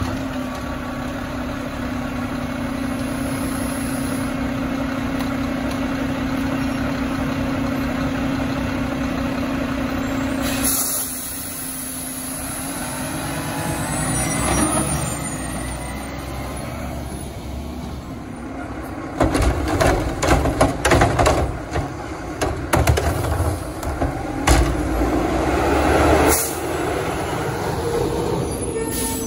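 Mack garbage truck's diesel engine held at raised revs while the Curotto-Can arm works, then dropping back to idle about ten seconds in with a short hiss of air. Later comes a run of loud bangs and knocks as carts are dumped and slammed into the can.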